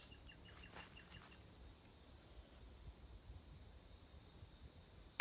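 Insects in a grassy field making a steady, high-pitched hum, with a faint rapid chirping in the first second or so.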